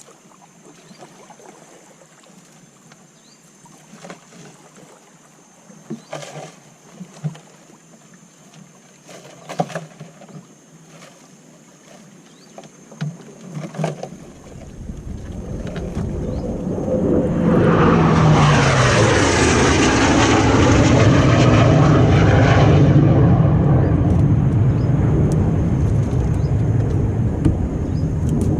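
A few scattered knocks and clatters, then about halfway through a small boat's motor comes in, swelling up over a few seconds with a pitch that dips and rises, and runs loud and steady to the end.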